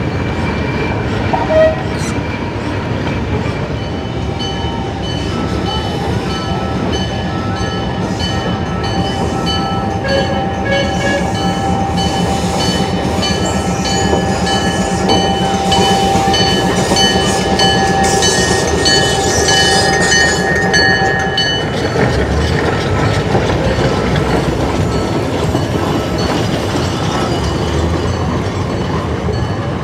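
Heavy machinery passing in a parade: a loud, steady mechanical rumble. From a few seconds in, steady high tones and a repeating ticking sound over it and stop abruptly about 21 seconds in.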